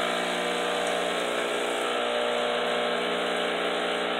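Breville Barista espresso machine's vibratory pump buzzing steadily as it pushes descaling solution out through the hot water spout during the descale cycle.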